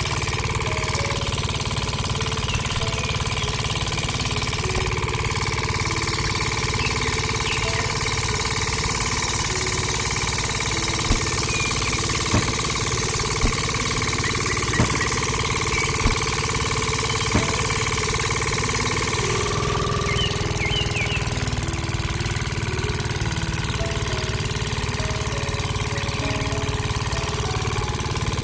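A small engine running steadily with a knocking, idling note, and six sharp knocks about a second apart in the middle.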